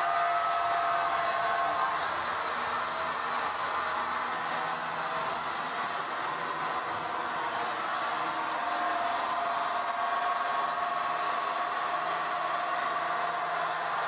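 Horizontal band sawmill running steadily, with a constant hissing noise and faint whining tones from the blade and motor.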